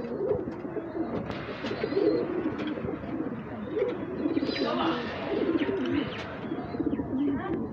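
Domestic pigeons cooing, one low warbling coo after another.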